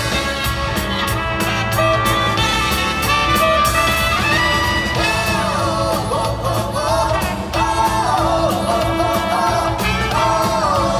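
Live band performance: four male singers singing together into microphones over a steady drum beat and band accompaniment.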